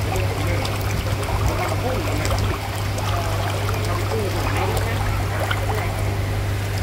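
Water trickling and splashing into koi tanks, over a steady low hum.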